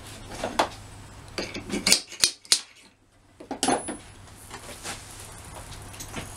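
Metal chuck and tools being handled and fitted at a wood lathe's headstock: sharp metallic clinks and knocks, a cluster about two seconds in and more near four seconds, over a faint low hum.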